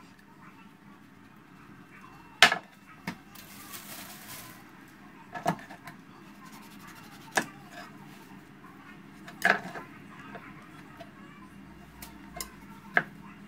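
Kitchen knife knocking and tapping on a wooden cutting board as needlefish are cut and handled: about six sharp knocks a couple of seconds apart, the loudest about two and a half seconds in. A brief scraping hiss comes about three and a half seconds in.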